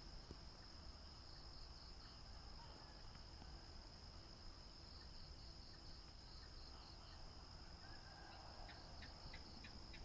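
Night insects, crickets, trilling faintly in one steady, unbroken high note. Near the end a second caller joins with a rhythmic chirping of about four pulses a second.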